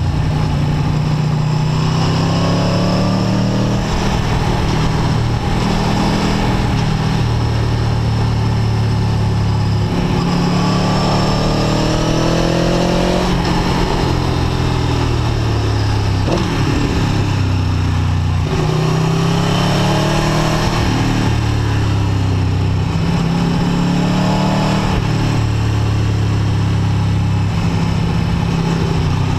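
Aprilia Tuono V4 1100 RR's 1077 cc V4 engine under way, heard close up from the rider's seat. Its pitch rises several times under acceleration and falls back as the throttle closes.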